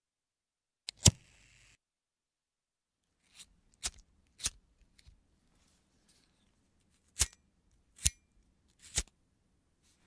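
Bic disposable lighter being flicked: a string of about eight sharp clicks of the thumb on the flint wheel at uneven intervals. The loudest strike comes about a second in and is followed by a brief hiss of gas.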